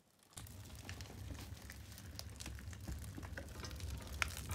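A kindling and birch-bark fire in a cast-iron wood stove crackling with many irregular sharp snaps as it takes off strongly. Under it a steady low rumble starts suddenly just after the start.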